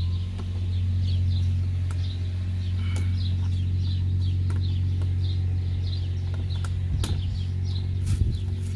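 A steady low hum with a bird chirping over it again and again, about three short chirps a second, and a few sharp clicks near the end.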